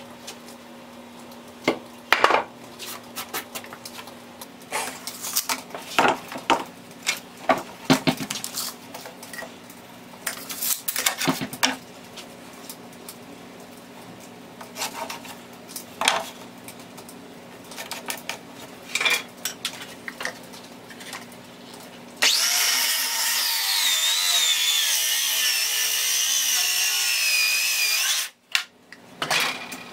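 Scattered knocks and clatter of wood and hand tools being handled. Then, about two-thirds of the way through, a handheld circular saw cuts through an old weathered wooden beam for about six seconds, its whine falling in pitch under load, and stops suddenly.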